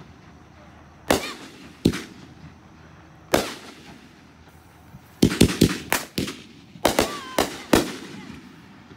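Aerial fireworks bursting overhead as sharp bangs. Three single bangs come in the first three and a half seconds, then a quick string of about eight bangs over the next three seconds.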